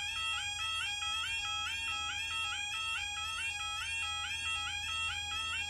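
Two level crossing warning alarms sounding together, a loud, rapidly repeating two-note electronic tone, slightly out of step with each other. They signal that the automatic half-barrier crossing has activated for an approaching train.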